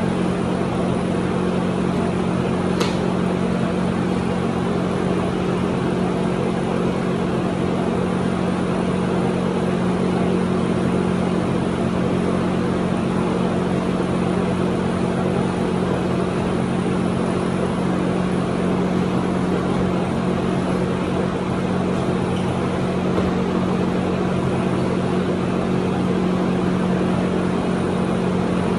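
Steady hum of a running motor, unchanging in pitch and level, with a single sharp click about three seconds in.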